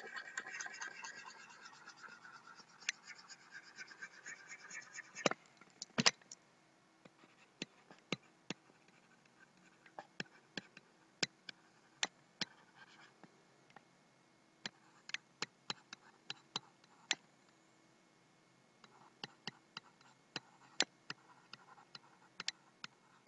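Faint scratching of a stylus writing on a pen tablet, with many sharp taps as the pen strikes and lifts off the surface.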